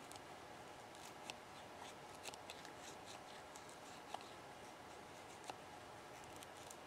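Knife blade shaving wood: faint, irregular scraping strokes and small ticks.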